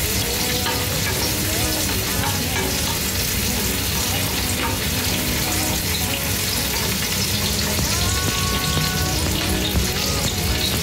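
Sliced onions and ginger sizzling in hot oil in a steel wok, a steady frying hiss, while being stirred with a spatula as they sauté toward golden brown.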